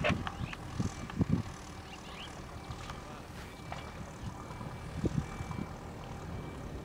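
Engine of heavy machinery running steadily, with several short knocks in the first second and a half and another about five seconds in.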